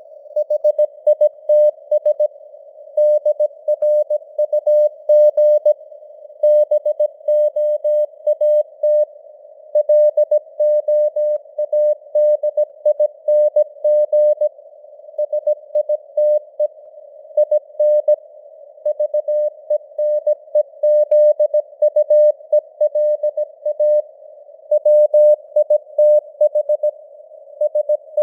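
Morse code (CW) at 17 words per minute: a single steady tone of about 600 Hz keyed on and off in dots and dashes, with short gaps between letters and words. It sits in simulated radio noise, a narrow band of hiss around the tone, and the signal strength varies (QSB fading).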